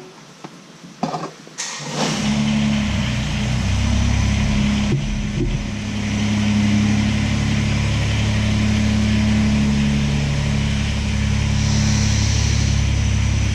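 A tractor engine starts about two seconds in and then runs steadily at idle, after a few light clicks.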